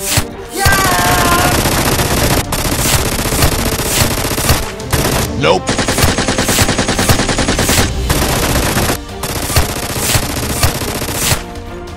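Rapid automatic gunfire sound effects: long bursts of machine-gun fire broken by short pauses.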